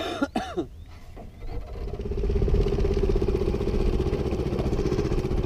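Small boat outboard motor running steadily, coming in about a second and a half in and holding an even pitch.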